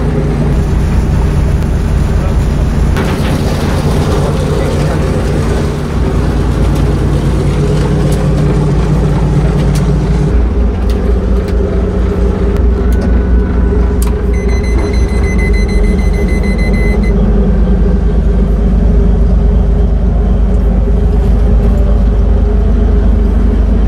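A fishing boat's marine diesel engine running steadily, heard from the wheelhouse; its low note shifts about ten seconds in. A high electronic beep sounds for a couple of seconds midway.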